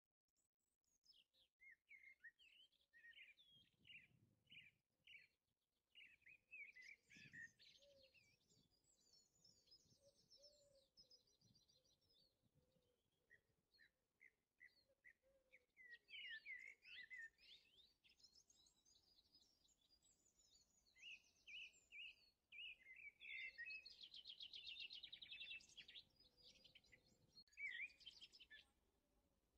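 Faint birdsong: several birds chirping in quick, high repeated notes and short rapid trills.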